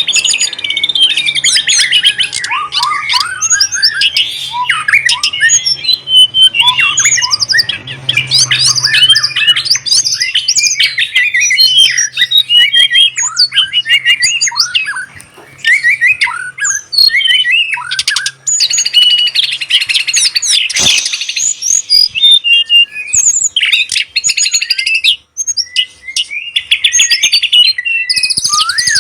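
Caged pet songbirds singing a long, varied song of rapid chirps, trills and whistled notes that change pitch constantly, with a brief sharp knock about two-thirds of the way through.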